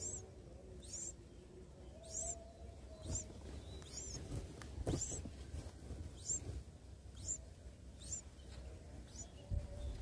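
Nestlings peeping in the nest: short, thin, very high chirps repeated a little over once a second, faint and regular.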